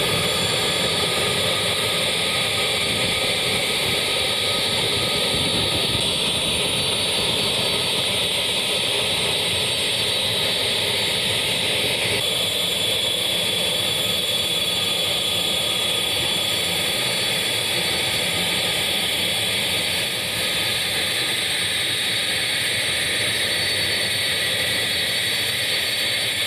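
A four-engine BAe 146-family jet's turbofan engines running at taxi power: a steady high whine over continuous rushing noise.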